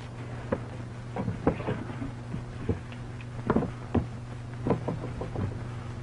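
Scattered, irregular knocks and thumps, about a dozen, over a steady low hum from an early sound-film soundtrack.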